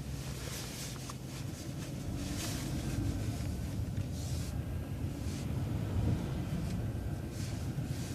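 City bus engine and road noise heard from inside the bus, a steady low rumble as it drives along, with short rushes of hiss coming and going.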